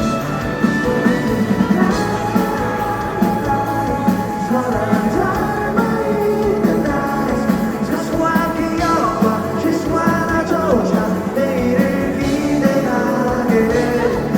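A live rock band playing a song through a concert sound system: drums, bass and electric guitars, with some singing and gliding lead notes partway through.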